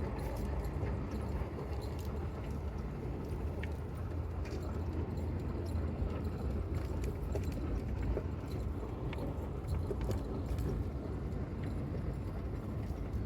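Jeep towing a camper driving on a snowy road: a steady low rumble of engine and tyres, with scattered small clicks and knocks.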